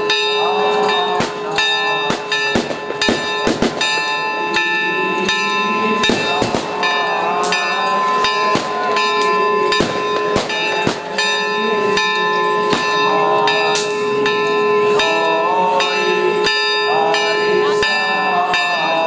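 Church bells pealing nonstop in celebration of the Easter Resurrection, their tones ringing on under many irregular sharp strikes. A crowd's voices are heard beneath them.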